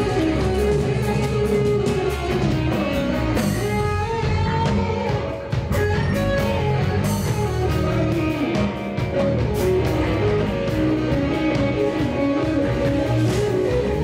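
A live rock band playing, with electric guitars, bass and drums, heard from within the audience.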